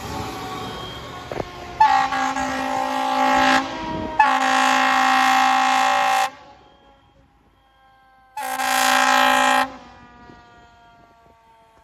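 Fire truck air horns blasting three times, two long blasts followed by a shorter one near the end, from a ladder truck responding code 3. After the last blast, the siren's pitch slides slowly down.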